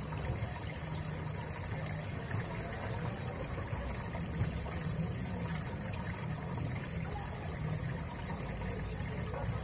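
Aquarium filter running: a steady trickle of water over a low, even hum.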